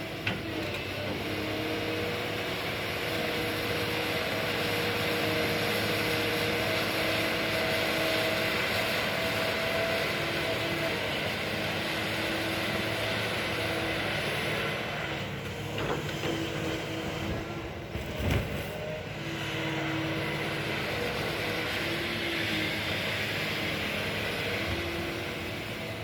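Excavator's diesel engine running steadily, its pitch shifting up and down as the machine works, with a single knock about two-thirds of the way through.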